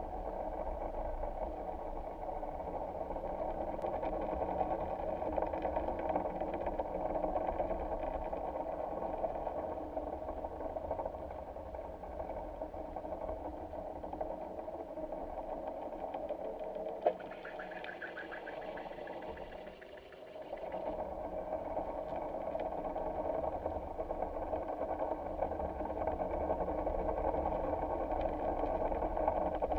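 A steady engine drone with a constant hum. About 17 seconds in there is a single click, then for a few seconds a higher hiss comes in while the drone dips, before the drone comes back.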